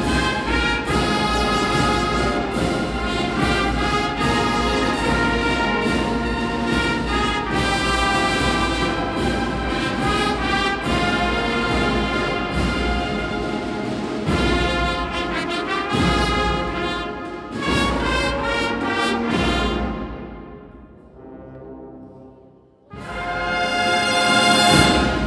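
A brass band of trumpets, flugelhorns, trombones and tuba playing a Spanish processional march (marcha de procesión). The full band plays until about twenty seconds in, drops to a soft passage for a few seconds, then comes in suddenly with a loud chord that swells near the end.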